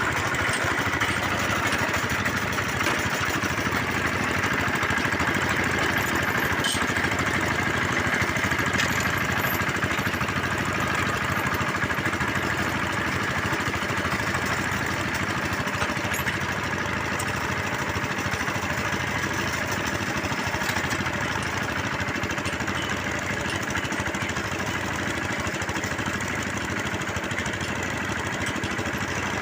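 Engine of a bore well drilling machine running steadily at an even speed.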